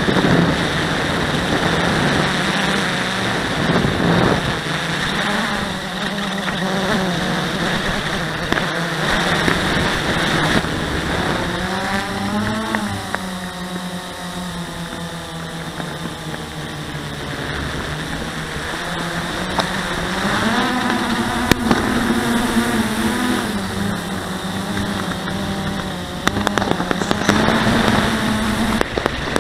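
Blade 350QX quadcopter's brushless motors and propellers whirring, heard close from the camera riding on the quad, the pitch rising and falling as the throttle changes. A few sharp clicks cut in, the loudest about two-thirds through and several near the end.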